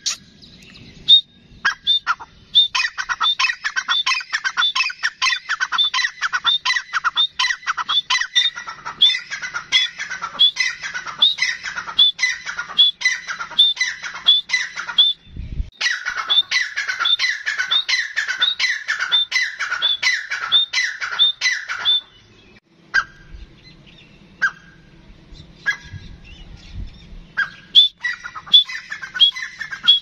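Grey francolin calling: long runs of loud, rapid notes repeated several times a second, each dropping in pitch. The calling breaks off briefly about halfway through, thins to a few scattered notes for several seconds after about two-thirds of the way, then picks up again near the end.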